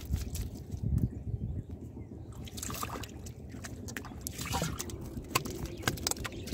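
Catfish thrashing in shallow muddy water, with irregular splashes, slaps and drips.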